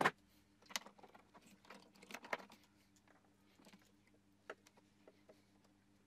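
Light clicks and rustles of wiring and small plastic connectors being handled against a plastic headlight housing. There is a sharp click at the very start, a cluster about two seconds in, and a few single ticks later, over a faint steady hum.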